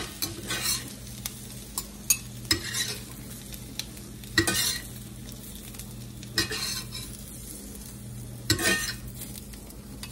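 Metal spatula scraping and scooping fried potato slices and onions out of a cast-iron skillet while the food sizzles. There are about six short scrapes a second or two apart over a low steady hum.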